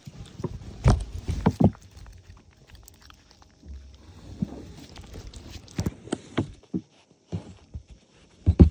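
Irregular knocks and scrapes right against the microphone, the loudest about a second in and just before the end, with rubbing noise between them: the phone being bumped and handled.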